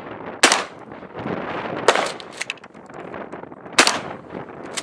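Three pistol shots, about a second and a half to two seconds apart, each followed by a brief echo, with a fainter crack just after the second.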